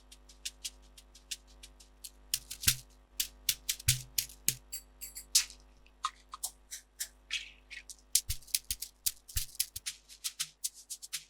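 Shaker loop samples played back one after another: quick, rhythmic shaker strokes whose pattern changes a few times as different loops are tried, with a few low drum thuds.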